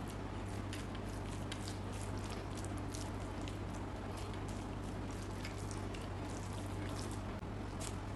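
Metal spoon spreading thick tahini-yogurt sauce over chicken in a glass dish: soft wet squishing with light, irregular clicks, over a steady low hum.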